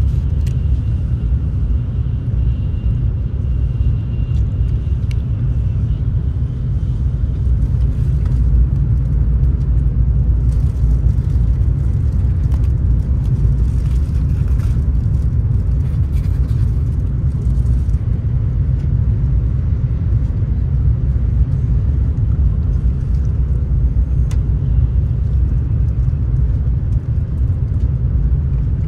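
Cabin noise inside a moving Shinkansen bullet train: a steady, loud low rumble, with a few faint light clicks in the middle.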